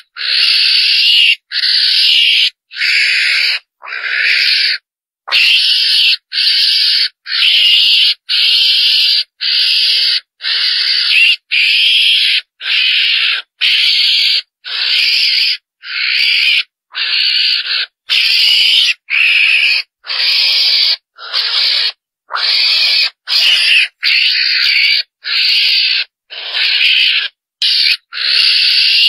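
Calls of the small Asian mongoose (chồn đèn) played back as a hunting lure: short, noisy cries about half a second long, repeated one after another at roughly one and a half a second.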